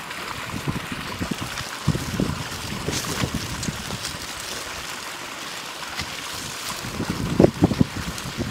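Open wood fire burning under a wire grill: a steady rush of flame with scattered crackles and pops. Near the end a few louder knocks as metal tongs handle the chicken on the grill.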